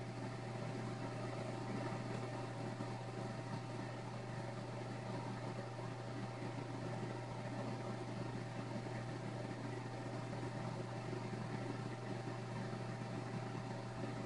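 Steady low machine hum with an even hiss and a faint steady high tone, unchanging throughout: background room tone while a computer runs.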